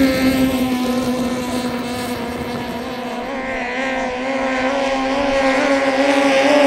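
Straight-piped Toyota 5K four-cylinder engines on longtail racing boats running flat out, a steady high-pitched engine note held at high revs. It grows louder in the second half as two boats run past close together.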